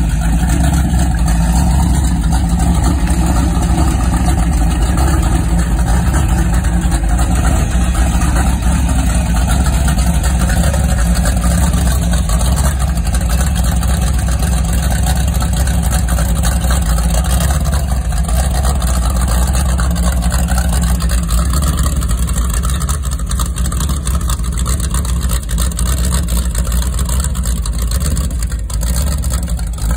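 Supercharged small-block Chevy 350 V8 with an 8-71 blower, running at a steady idle after a cold start.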